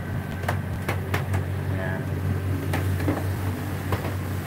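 Boat's engine running steadily, a low drone heard from inside the cabin, with several light clicks and knocks over it.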